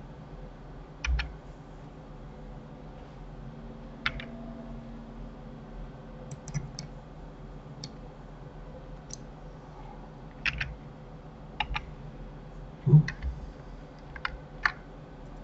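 Scattered clicks and taps of a computer keyboard and mouse, a dozen or so at irregular intervals, with one louder knock near the end.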